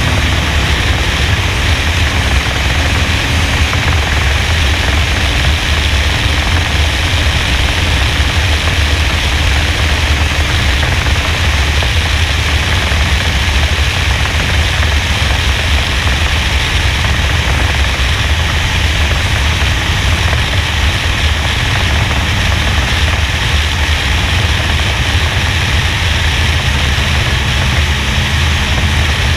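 NASCAR stock car's V8 running at speed, buried in the rush of wind over a roof-mounted GoPro: a loud, steady roar in which the lift off the gas for the corners can hardly be heard.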